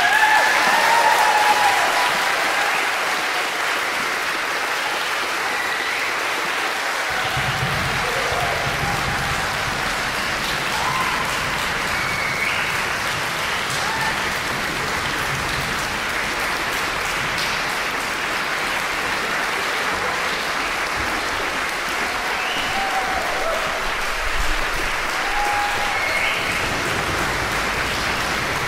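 Audience applauding steadily, loudest at the start, with a few voices calling out over the clapping.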